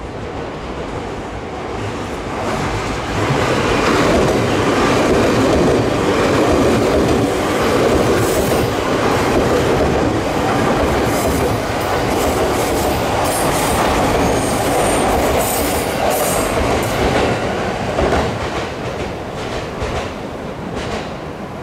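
A JR E231-series Chūō–Sōbu Line local train running past on curving track: a swelling rumble of wheels on rail with clatter and a high wheel squeal through the middle, easing off near the end.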